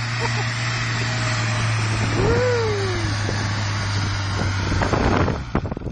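A vehicle engine running steadily under broad wind and road noise. About two seconds in, a single tone rises and falls. The engine noise drops away near the end.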